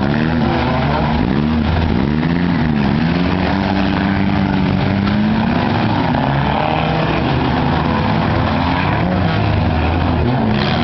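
Several four-cylinder demolition derby car engines revving at the same time, their pitches rising and falling and overlapping.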